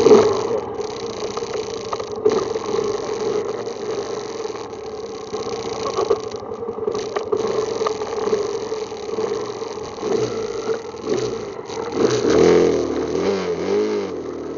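ATV engine running steadily under way, its pitch rising and falling a few times near the end as the throttle changes.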